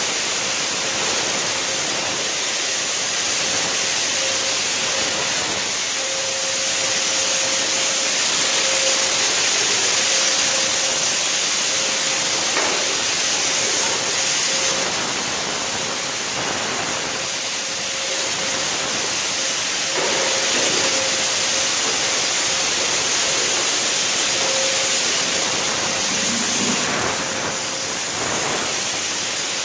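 Electric cold fogger (ULV sprayer) running, its blower driving out a fine mist with a steady hiss and a faint whine that comes and goes; the sound swells and dips slightly as it is swung around.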